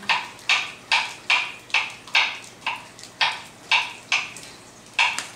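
A steady series of sharp knocks, about two a second, with a short gap near the end.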